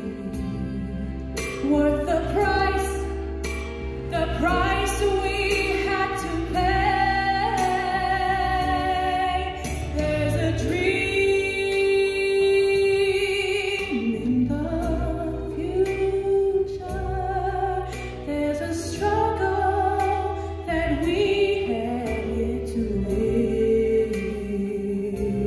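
A young woman singing a slow solo ballad into a handheld microphone, with long held notes that slide in pitch, over a steady low accompaniment.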